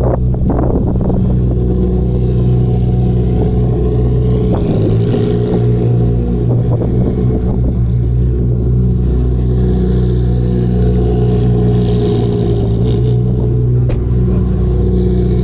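Ferrari racing car engines running together at a steady pitch. A faint rise and fall comes through twice, about five and twelve seconds in.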